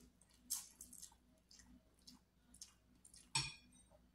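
Noodles in soup being slurped and chewed: a string of short, soft slurps and mouth sounds, the loudest about three and a half seconds in.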